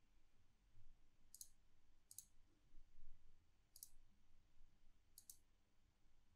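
Four faint, irregularly spaced computer mouse clicks over near silence.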